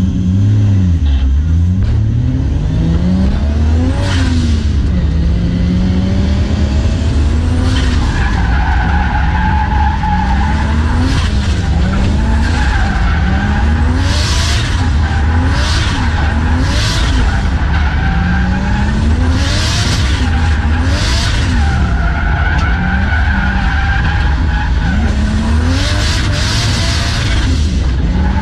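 Nissan Silvia S14 drift car with a 1JZ inline-six swap, heard from inside the cabin, revving up and down over and over as it is driven. From about eight seconds in the tyres squeal steadily while the car slides, with repeated short rushes of hiss.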